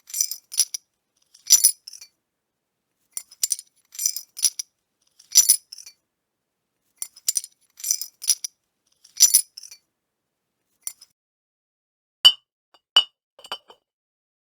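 Glass beer bottles clinking together in quick clusters of sharp taps. Near the end the taps come singly and each rings at a clear pitch.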